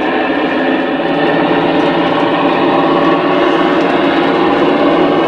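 Model railway diesel locomotive with a DCC sound decoder playing its diesel engine sound, running steadily through the loco's small speaker as the train moves.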